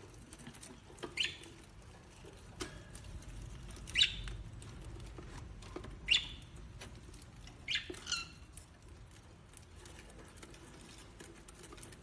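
Peach-faced lovebird giving short, high chirps, about five in all with the last two close together, over faint clicking and rustling as it shreds a palm leaf.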